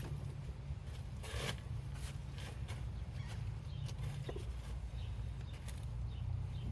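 Scattered rustling and small clicks of handling, with a brief scratchy rustle about a second and a half in, over a steady low rumble.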